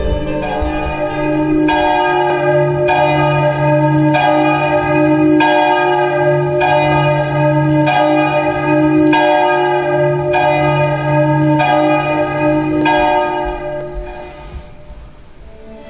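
Large church bell tolling steadily, about one stroke every second and a quarter, each stroke ringing on over a sustained low hum. The last stroke comes about 13 s in and then dies away.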